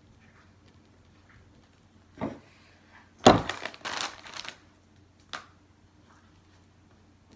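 Foil bag of chips crinkling as it is handled and set down on a table, loudest about three seconds in and lasting about a second and a half. A single knock comes just before it and a sharp click just after.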